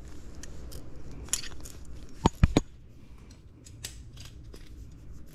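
Small aluminium motorcycle rearset parts clicking and knocking as they are worked with pliers, with three loud, sharp metallic clacks in quick succession about two and a half seconds in.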